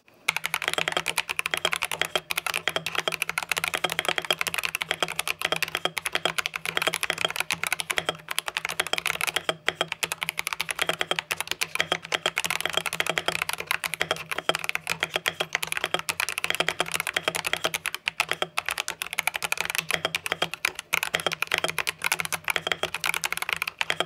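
Skyloong GK75 mechanical keyboard with optical switches and dual-shot PBT keycaps being typed on fast and without a break, a dense run of key clacks. The board is stock, exactly as it comes from the factory.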